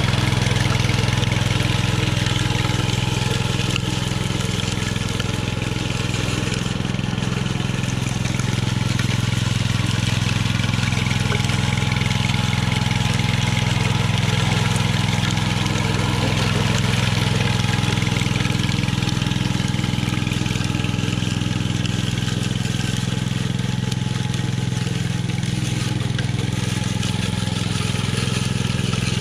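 Walk-behind power trowel's small gas engine running steadily while its steel blades smooth and finish the surface of freshly poured concrete.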